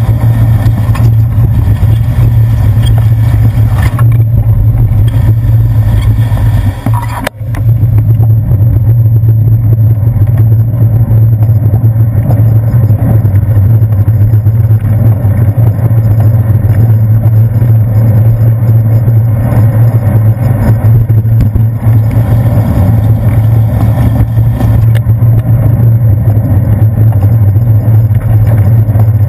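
Steady, loud low rumble of wind and road vibration picked up through a handlebar-mounted GoPro Hero 2 housing on a bicycle riding on wet pavement, with street traffic around it. The rumble drops away briefly about seven seconds in.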